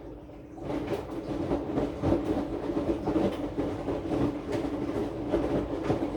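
AQUA AQW-DX12M drum washing machine starting up again after a quiet pause, its drum turning with a steady motor hum and irregular rattling and knocking of the laundry load; picked up through the machine's lid, so the vibration comes through strongly. It rises from near quiet to full level within the first second.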